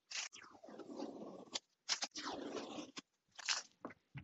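Blue painter's tape being peeled off a glass 3D printer bed, a crackling, ripping scrape in three or four pulls with short pauses between them.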